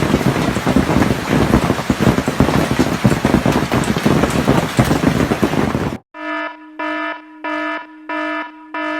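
Hail pelting down hard in a dense, steady clatter that cuts off suddenly about six seconds in. Then a car horn sounds in short, regular blasts, about three every two seconds, like a car alarm going off.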